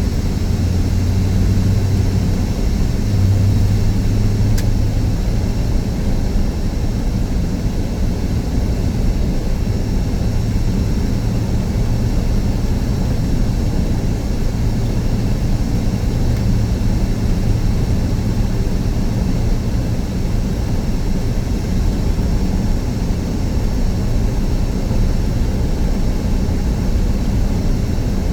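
Steady engine and road noise inside a moving car, a constant low rumble with no sudden events.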